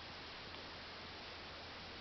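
Steady low hiss of room tone with a faint hum, and one faint tick about half a second in.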